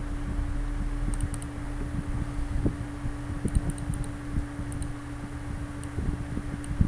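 Scattered light clicks of a computer mouse and keyboard over a steady hum and low rumble of room noise, in small clusters about a second in, at three and a half to four seconds, and near five seconds.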